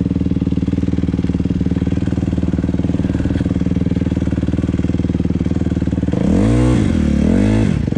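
Dirt bike engine idling steadily, then revved twice in quick rising-and-falling blips near the end.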